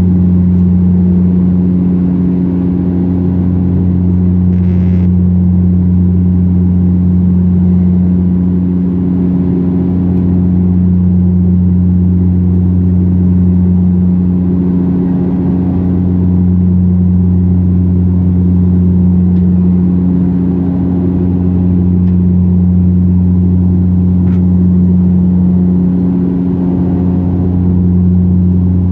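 Steady deep drone of a Dash 8 Q400's twin turboprop engines and propellers heard inside the cabin in flight: a strong low hum with an overtone above it, swelling and fading about every six seconds.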